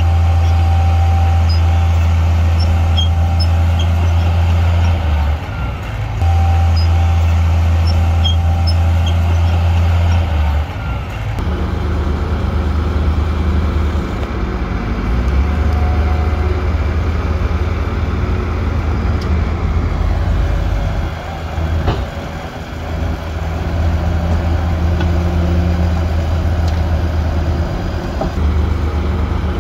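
Heavy diesel earthmoving machinery running, a deep steady engine hum that changes pitch and level a few times as the load changes. There is one sharp knock a little past the middle.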